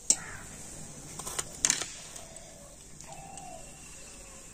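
A few sharp metal clicks and knocks as a wire skimmer lifts fried pakoras out of hot oil and touches a steel kadai, with faint bird calls in the background.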